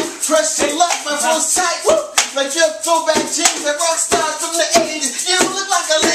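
A man singing over a beat of sharp strikes made by hand, about two a second.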